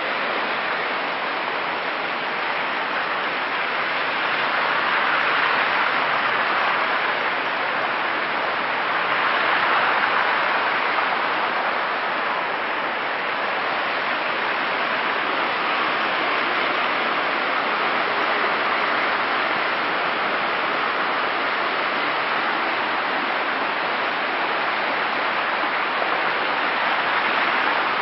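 Steady rushing of water from a flash-flood torrent pouring down a limestone ravine in a heavy rainstorm.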